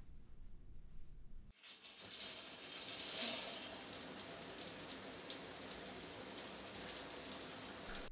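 Water spraying steadily from a handheld shower head. It starts suddenly about a second and a half in, after quiet room tone.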